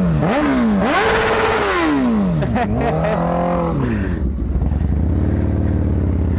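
Motorcycle engine rising and falling in pitch several times as it revs up and slows, then running at a steady pitch from about halfway through, with a burst of wind rush about a second in.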